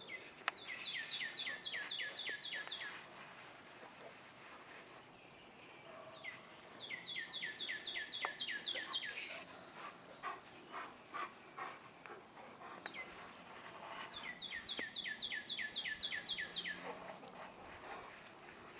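A songbird singing: three runs of quick, high, downslurred notes, about five a second, each run lasting a couple of seconds, with faint rustling between them.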